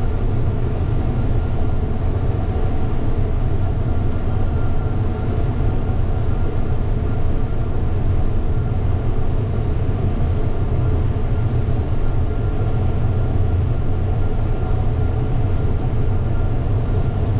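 Combine harvester running steadily while harvesting corn, heard from inside the cab: a constant low drone with a faint steady whine over it.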